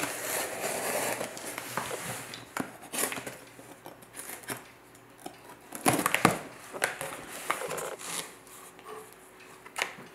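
A cardboard box being slit open with an Opinel folding knife and unpacked: irregular crinkling, tearing and rustling of tape and packing, with a few sharp clicks, the loudest about six seconds in.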